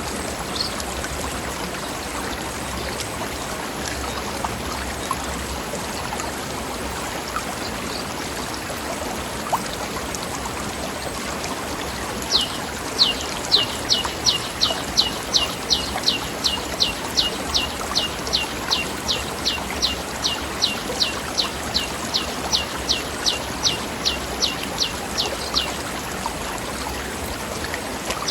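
Stream running steadily, an even rush of water. About halfway through, a bird starts a long run of high, quick, downward-slurred notes, two to three a second, which stops a few seconds before the end and starts again at the very end.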